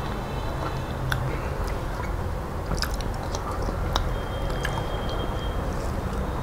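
Close-up chewing of a soft mouthful of dal and rice, with a few sharp wet clicks.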